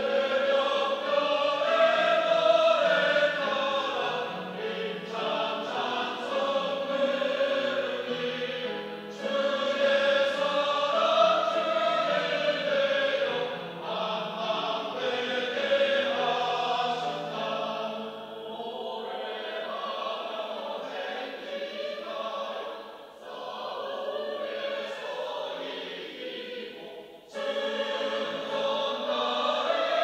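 Mixed church choir of women's and men's voices singing a sacred anthem in full voice. It drops to a softer passage about two-thirds of the way through, then comes back in loud near the end.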